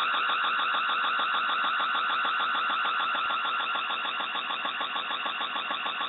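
Electronic alarm sounding without a break: a harsh, rapidly pulsing tone with many overtones, heard through a security camera's microphone.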